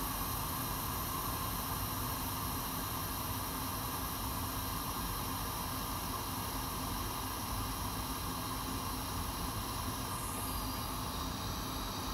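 Steady hiss of blowing air from a hot air rework station, used to reflow the solder balls under MacBook Air soldered-on RAM chips. The treble shifts slightly about ten seconds in.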